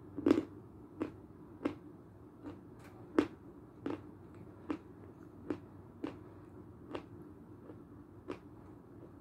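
Close-up chewing of a mouthful of Belgorod edible chalk: a steady run of sharp, dry crunches about one every two-thirds of a second, the loudest near the start and about three seconds in.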